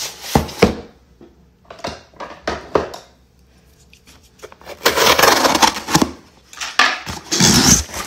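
Cardboard shipping box being handled and opened: a few knocks and taps against the box, then two longer noisy stretches of scraping and tearing at the cardboard and tape, about five and seven and a half seconds in.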